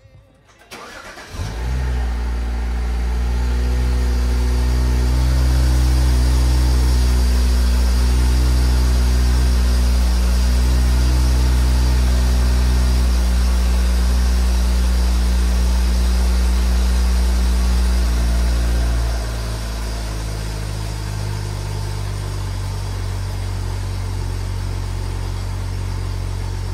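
BMW N55 turbocharged straight-six starting about a second in and settling into a steady idle. About 19 s in the idle drops a step in loudness and holds steady.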